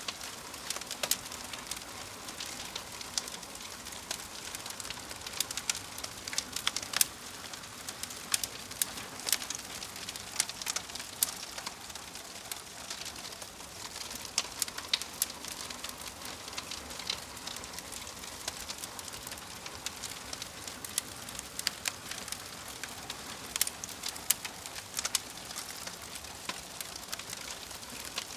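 Log fire burning in a fireplace: a steady hiss with frequent sharp, irregular crackles and pops.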